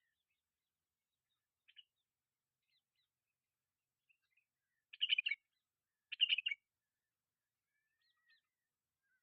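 Jungle babbler giving two short bursts of harsh, rapid chattering calls about five and six seconds in, with a few faint chirps before and after.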